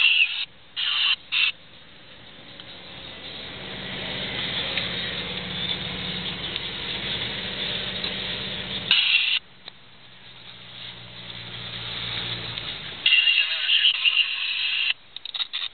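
Off-road 4x4's engine and cabin noise heard from inside while climbing a grassy slope, the engine note slowly building louder twice. It is cut through by sudden loud spells of harsh high-pitched noise: near the start, about nine seconds in, and for a couple of seconds near the end.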